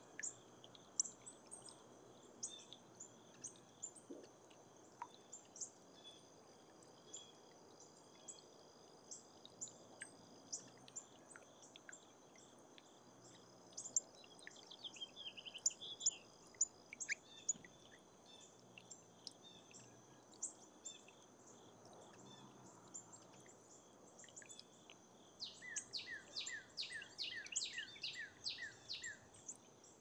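Faint outdoor ambience with a steady high insect drone and scattered small ticks. A bird chirps briefly around the middle, and near the end a songbird sings a run of about ten quick falling whistled notes, two or three a second.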